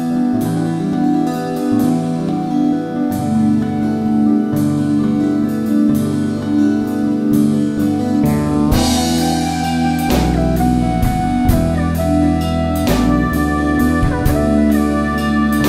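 Background music: keyboards and fretless electric bass over a drum kit keeping a steady beat.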